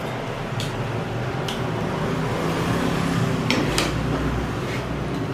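Fork and spoon clinking against plates while eating: a few light clinks, the sharpest about three and a half seconds in, over a steady low background hum.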